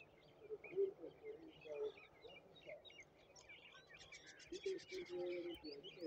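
A group of birds chirping and twittering, with a fast chattering trill about two-thirds of the way in and short lower-pitched calls underneath at times.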